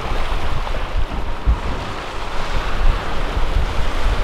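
Wind buffeting the microphone in gusts over the steady rush and splash of choppy open-sea waves.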